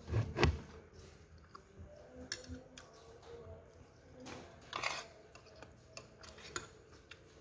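A metal spoon and fork clicking and scraping against a plate as cooked cassava leaves are gathered: a handful of separate clicks, the loudest about half a second and five seconds in, with chewing of a mouthful near the start.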